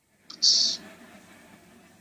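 Sitcom laugh track: a studio audience laughing, starting sharply about half a second in and fading away.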